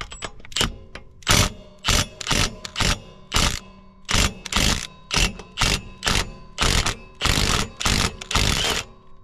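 Milwaukee cordless impact wrench running in short trigger bursts, about two a second, while loosening the PTO clutch bolt on a zero-turn mower.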